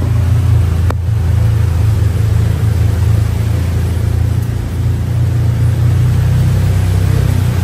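Vehicle engine running steadily while driving slowly along an off-road trail, a low, even drone with no change in pace. There is one light click about a second in.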